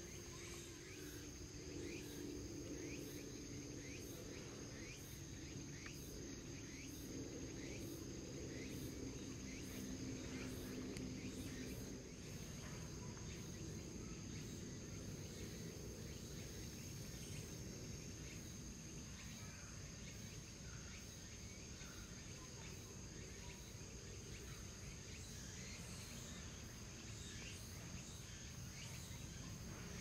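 Faint outdoor ambience: a steady high-pitched insect drone with many short chirps scattered over it, and a low hum through roughly the first twelve seconds.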